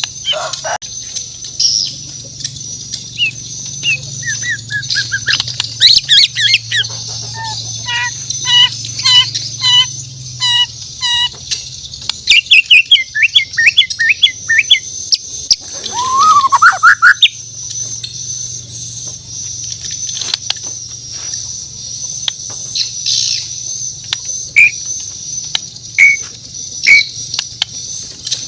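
White-rumped shama (murai batu, Borneo form) singing a varied song of whistled phrases, trills and glides, with a run of evenly repeated notes and a rising whistle in the first half, then only scattered short notes. A steady high hiss and sharp clicks sit beneath it.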